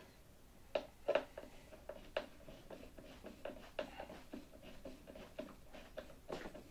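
3 mm hex driver turning the engine-mount screws into the firewall's blind nuts: a run of small, irregular clicks and scrapes, the sharpest about one and two seconds in.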